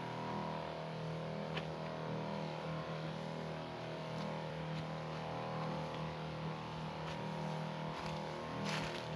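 Engine of a motorized hose-and-lance crop sprayer running at a steady speed, with a few brief knocks or rustles near the end.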